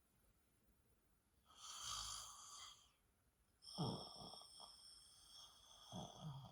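A woman softly snoring while dozing upright: a breathy breath about a second and a half in, then two low snores about two seconds apart.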